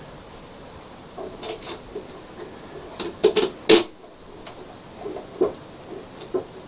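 Scattered short clicks and taps of screws and a tool being handled while fitting screws to the frame of a 3D printer kit, with a louder cluster of clicks about three seconds in.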